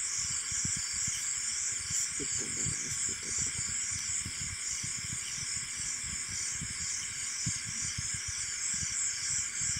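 Steady background hiss with a high, evenly pulsing chirr running through it, and scattered faint low bumps.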